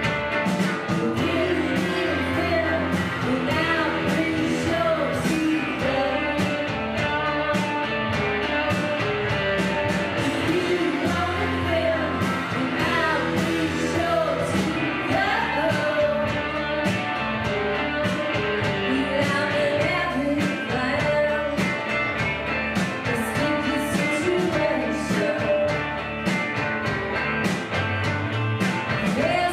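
Indie rock band playing live: electric guitars and a steady beat, with a woman singing.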